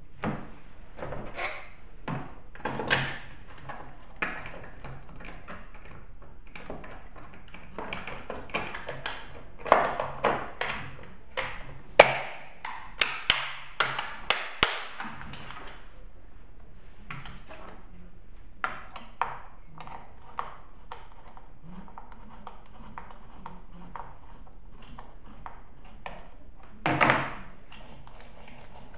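Scattered clicks, taps and clinks of a Husqvarna chainsaw being put back together by hand, as the spare chain, bar and covers are fitted. A quick run of sharp clicks comes about halfway through, and a louder clatter comes near the end.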